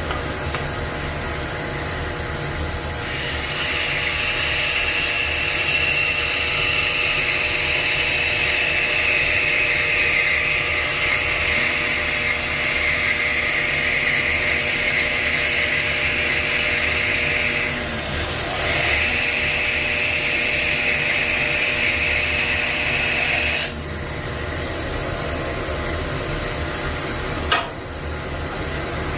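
Jet 18-inch 3 hp bandsaw running, its 1/4-inch Timberwolf blade ripping curly maple into a 1/4-inch panel. A steady hiss of the cut starts about three seconds in over the motor's hum, dips briefly, and stops suddenly after about twenty seconds, leaving the saw running; a single short knock comes near the end.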